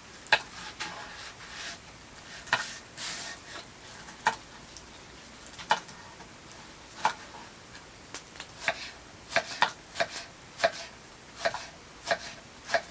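Knife chopping vegetables on a cutting board: single sharp cuts a second or so apart, coming quicker in the last few seconds.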